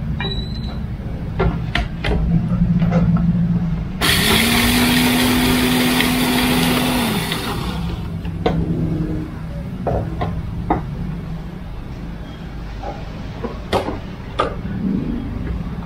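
Electric blender running for about three seconds, starting about four seconds in and cutting off: a loud whir with a steady pitch. Scattered light knocks and a low steady hum around it.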